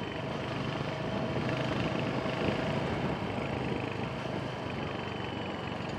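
Royal Enfield Hunter 350's single-cylinder engine running steadily as the motorcycle rides along, mixed with road and wind noise, picked up by an earphone microphone inside the rider's helmet.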